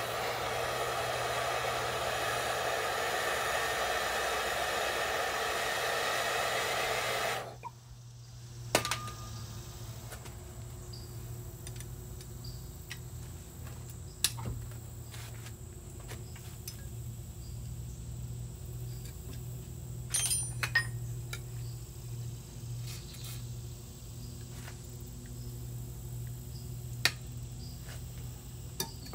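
A loud, steady rushing noise like a blower or air tool running, which cuts off suddenly about seven and a half seconds in. After it a low steady hum remains, broken by a few sharp metallic clinks and knocks of tools or parts.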